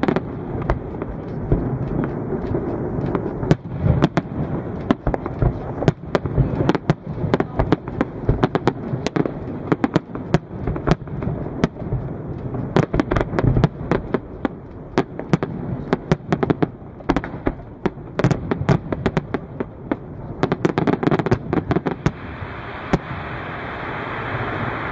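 Aerial fireworks display: a dense, rapid run of shell bursts and crackling reports over a continuous rumble, thinning out near the end.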